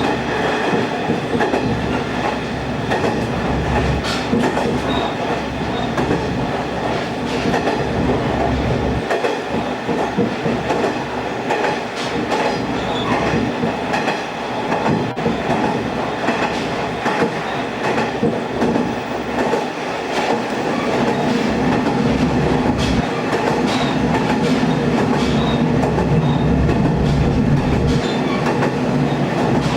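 Kumagawa Railway diesel railcar running along the line, heard from inside: steady running noise with the wheels clicking over rail joints. It grows louder about two-thirds of the way through.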